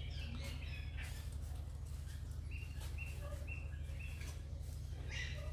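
A bird chirping repeatedly in short, even, high notes, about two a second from around halfway in, over a steady low hum.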